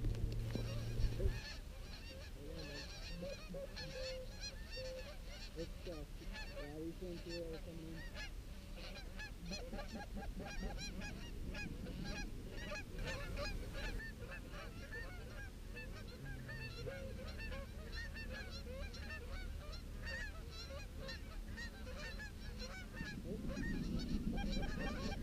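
A flock of Canada geese honking, many overlapping calls throughout as the flock approaches. A couple of brief knocks about a second in.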